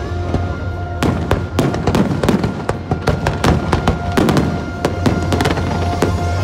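Fireworks shells bursting in quick succession, several bangs a second, over a steady held chord from the show's music soundtrack.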